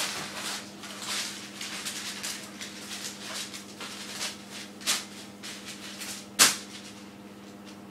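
Rustling and light knocking from things being handled on a worktop, with a sharper knock about five seconds in and the loudest, sudden knock about six and a half seconds in, over a steady low hum.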